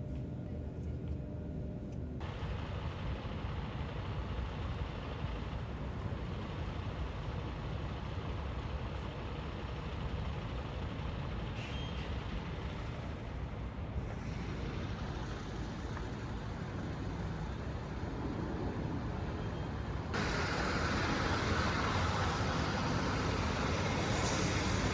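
Steady low rumble and hiss of a heavy vehicle, in several segments that cut abruptly from one to the next; it is louder and hissier in the last few seconds.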